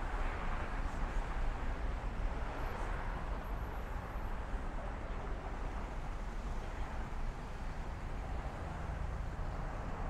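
Steady downtown street noise with a constant low rumble, like car traffic going by.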